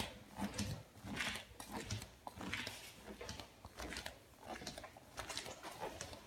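Footsteps in flip-flops on a wooden floor: a series of soft slaps and scuffs at an uneven walking pace.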